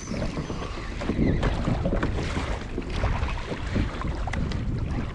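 Wind buffeting the microphone over ocean water sloshing and slapping against a kayak's hull, a steady noisy rumble scattered with small irregular knocks.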